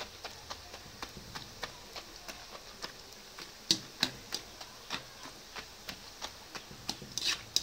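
Karasev (gram-flour dough strands) deep-frying in hot oil in an iron kadai: a faint steady sizzle with frequent irregular crackling ticks, one louder crack about halfway through.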